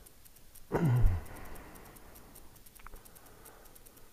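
A man's short low grunt about a second in, falling in pitch, followed by a few faint small clicks.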